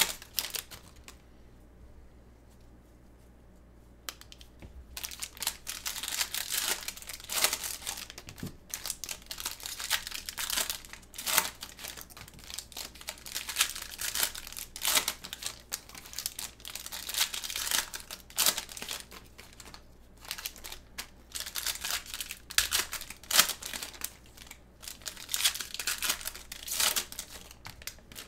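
Foil trading-card pack wrappers crinkling and tearing as the packs are ripped open by hand, in irregular crackly bursts. There is a quieter lull of a few seconds near the start.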